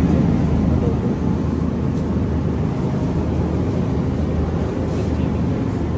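Shopping cart rolling along a hard store floor, a steady low rumble.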